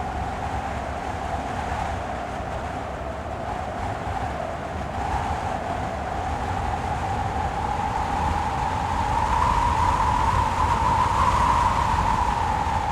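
Heavy wind gusting: a continuous rush with a deep rumble underneath and a hollow howl. The gust swells louder and slightly higher in pitch past the middle, then eases just before the end.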